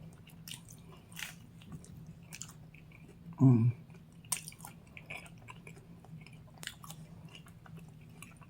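Close-miked chewing of thin-crust pepperoni pizza: many small wet mouth clicks and crunches. A short voiced hum comes about three and a half seconds in.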